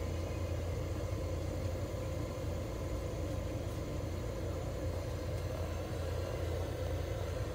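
Steady low machine hum of a veterinary ICU unit running oxygen therapy with warming and humidifying.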